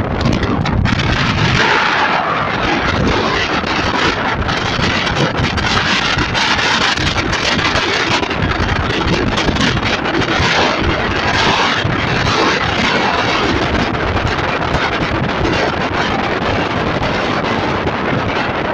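Wind rushing over the microphone of a moving motorcycle, a steady dense rush with the bike's engine and road noise mixed in beneath it.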